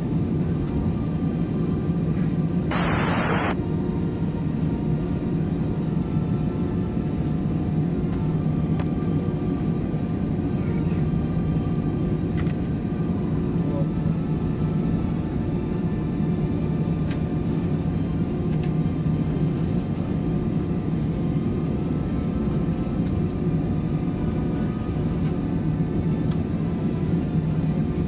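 Steady cabin drone of an Airbus A321 waiting on the runway with its engines at idle, a constant hum with several steady tones. A short burst of radio static cuts in about three seconds in.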